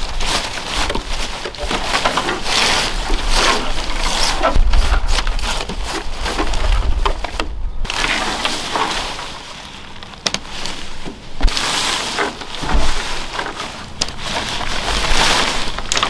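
Nylon tent fabric rustling and crinkling as it is spread out and pulled straight by hand, in uneven swells, with a few sharp knocks against a wooden deck.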